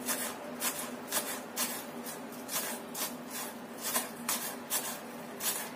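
Kitchen knife slicing spring onions on a plastic cutting board: a steady run of short knife taps, about two a second.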